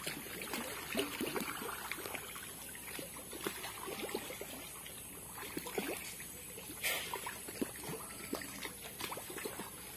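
Fish rising to take feed at a pond's surface: scattered small splashes and plops on the water, with one louder burst about seven seconds in.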